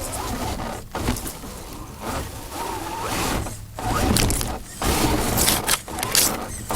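Axial SCX10 II RC crawler driving, picked up by its on-board camera as rough scraping mechanical noise; the recording is glitching, with several brief dropouts.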